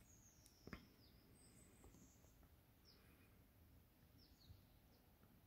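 Near silence: room tone with a few faint, short, high chirps and one soft click about a second in.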